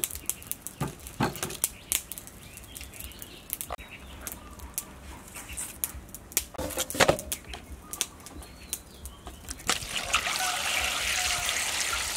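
Scattered sharp clicks and knocks of things being handled and set down. From about ten seconds in, a steady stream of tap water pours into a metal bowl holding a large fish.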